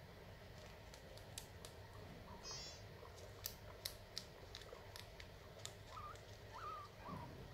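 Guinea pigs chewing corn husk: faint, scattered crisp crunching clicks, with a few short squeaks near the end.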